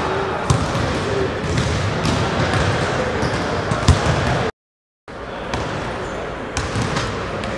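Basketballs bouncing on a hardwood gym floor, a few sharp thuds over a steady hubbub in a large echoing gym, the loudest thud just before the sound cuts out completely for about half a second midway.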